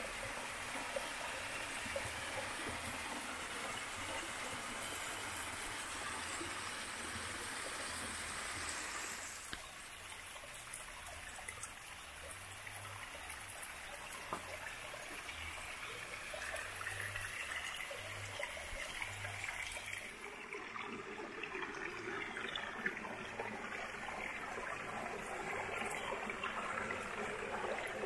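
Small mountain stream running and trickling over rocks, a steady rush of water. Its sound changes abruptly about nine seconds in and again about twenty seconds in.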